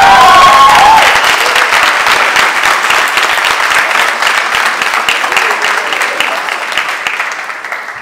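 Audience applauding, with a few voices cheering at the start; the clapping fades away near the end.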